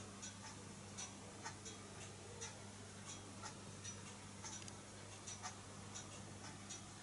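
Faint, light ticks about twice a second, slightly uneven, over a steady low hum.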